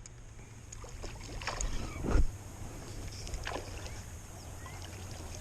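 Sounds aboard a small fishing boat on the water: a steady low rumble of wind and water, with a few scattered knocks and clicks, the loudest a dull thump about two seconds in.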